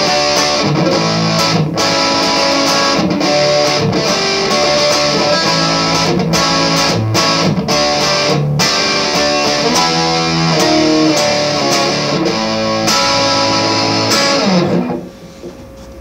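Murphy-aged Gibson '59 reissue Les Paul electric guitar played through an amplifier: picked chords and single-note lines with ringing, sustained notes. About fifteen seconds in the playing stops and the sound falls to a faint hiss.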